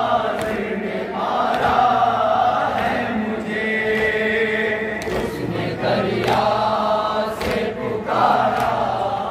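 Group of men's voices chanting a noha, a Shia mourning lament, together through microphones in long sung phrases with short breaks between them.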